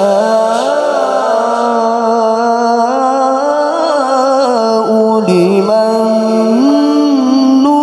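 A male qari reciting the Qur'an in the melodic tilawah style through a microphone, drawing one syllable out into a long ornamented phrase with wavering runs. It climbs to a higher held note near the end.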